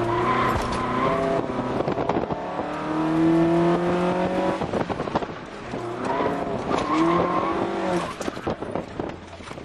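A car's four-cylinder engine heard from inside the cabin during an autocross run, pulling hard and rising in pitch twice, easing off in between. Tires squeal and the car knocks and rattles through the turns.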